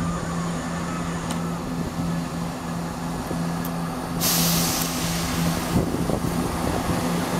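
Class 170 Turbostar diesel multiple unit pulling away from a platform, its underfloor MTU diesel engines revved up with a steady hum. About four seconds in a loud burst of air hiss lasts for about a second and a half.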